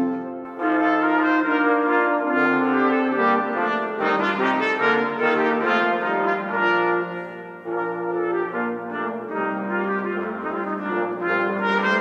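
Brass playing a slow chorale in several parts, with a trumpet among them, in long held chords. The music breaks briefly about half a second in and dips again about two-thirds of the way through, between phrases.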